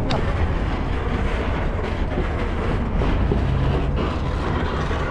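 Steady low rumble of busy city street traffic.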